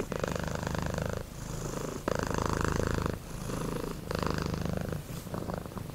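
A domestic cat purring close up, the purr swelling and easing with each breath, about one full breath every two seconds.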